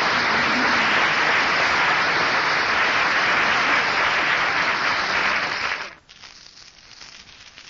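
Audience applauding after a speech. The applause cuts off abruptly about six seconds in, leaving faint room noise.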